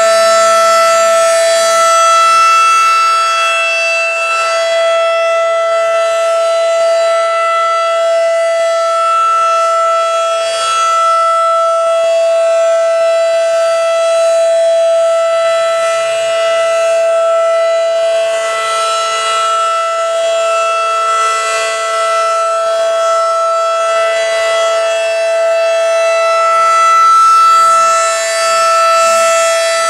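Federal Signal outdoor warning siren holding a steady, unwavering tone at constant pitch, with its loudness swelling and dipping slightly: the steady alert signal.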